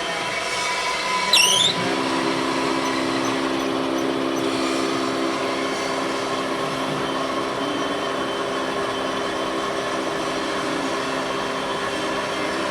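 A machine running with a steady, noisy hum. A brief high rising squeal comes about a second and a half in, then a few steady humming tones set in and hold.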